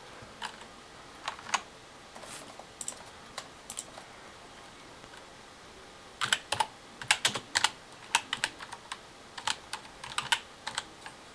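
Typing on a computer keyboard: scattered key clicks at first, then quicker runs of keystrokes from about six seconds in.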